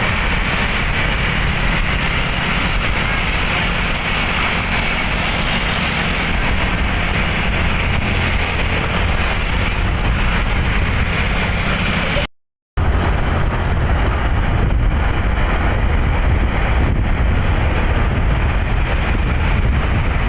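Steady rush and rumble of a moving vehicle on the road, with no horn sounding. The sound drops out completely for about half a second around twelve seconds in, then carries on the same.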